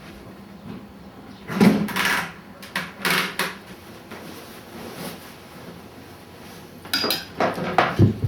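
Several short knocks, clatters and scrapes of hard objects being handled, coming in clusters about one and a half seconds in, about three seconds in, and again near the end.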